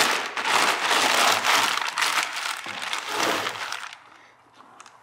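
Thin plastic bag crinkling and rustling as it is pulled off a heavy lathe collet chuck, dying away about four seconds in.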